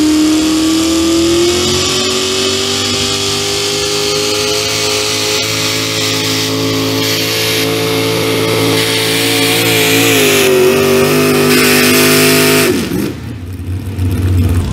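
Economy hot rod pulling tractor engine at full throttle, dragging a weight-transfer sled. The pitch climbs at the start, holds steady with a brief sag about ten seconds in, then falls off sharply near the end as the throttle is cut and the pull finishes.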